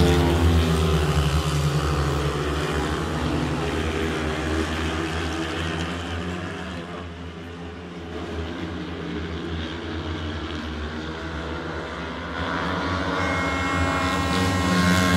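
Four speedway bikes racing, their 500 cc single-cylinder methanol engines running flat out together. Loud at first, they fade to their quietest about halfway through as the pack goes away round the track, then grow louder again near the end as they come back round.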